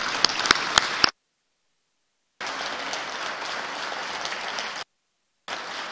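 Chamber applause, with a few sharp individual claps standing out in the first second. Twice the sound cuts out to complete silence, for about a second and then about half a second.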